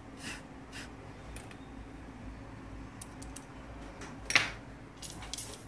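Light clicks and taps of a Samsung SCX-4623 laser printer's plastic fuser frame being handled and cleaned, with one louder knock about four seconds in.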